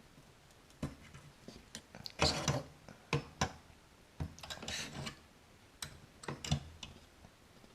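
Small hand tools working inside a metal amplifier chassis: a string of sharp clicks and taps, with two short bursts of metallic scraping and rattling, about two and five seconds in.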